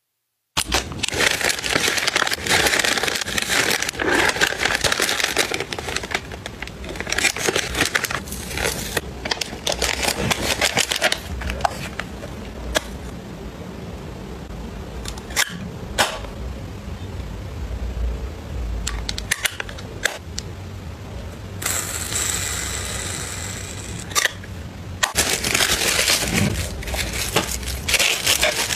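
Close-up handling sounds: plastic-wrapped sachets rustling and crinkling as they are packed into a plastic organizer, with scattered sharp taps and clicks of hard plastic cases.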